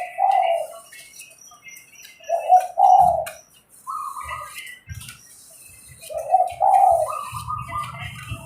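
Zebra dove (merbok) cooing, the same short phrase of soft notes repeated about every four seconds. Low knocks and scraping of bamboo being shaved with a knife come in under it, thicker near the end.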